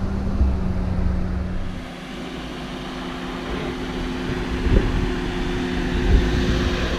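Truck engine running steadily with road noise while driving slowly over a rough dirt road. The engine note shifts about two seconds in, and two short thumps come near the end.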